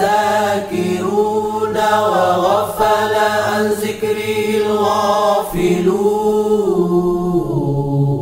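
Unaccompanied chanting of an Arabic salawat, a blessing on the Prophet, sung in long drawn-out melodic lines over a steady low drone. The melody falls and settles to a close near the end.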